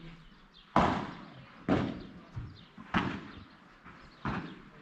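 Padel ball struck back and forth with padel rackets in a rally: four sharp hits about a second apart, with fainter knocks of the ball bouncing between them.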